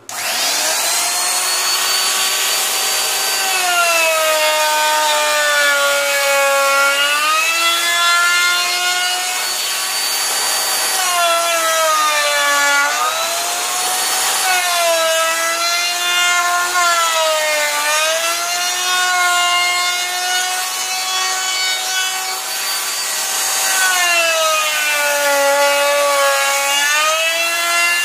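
Handheld wood router with a roundover bit starting up and running. Its high whine sags in pitch several times as the bit bites into the edges of holes in plywood, then climbs back as it frees up.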